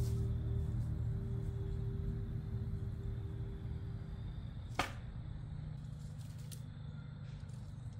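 A steady low rumble, with a soft held music note fading out a little past four seconds in. A little under five seconds in comes one sharp snap, then a fainter click.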